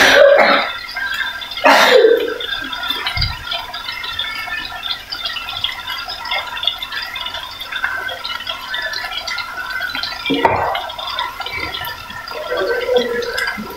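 Spice masala frying in hot oil in a kadai: a steady sizzling and bubbling, louder for a moment near the start and again about ten seconds in.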